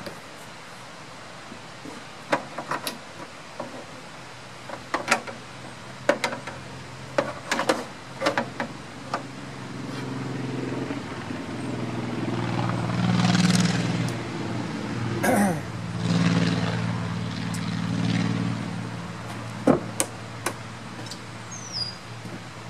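Scattered sharp clicks and knocks, then a low engine-like hum that swells and fades over about nine seconds, like a motor vehicle passing, with a sharp knock near the end.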